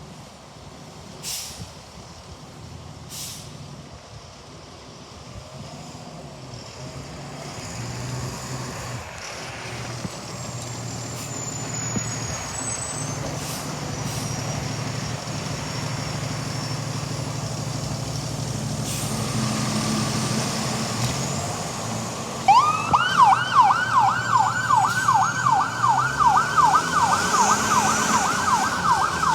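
Fire engine's motor growing steadily louder, then about 22 seconds in its siren starts up in a fast yelp, rising sweeps about three or four times a second.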